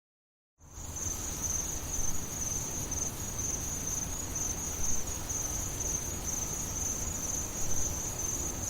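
Crickets chirping in a steady high trill over a low background rumble, fading in from silence about half a second in.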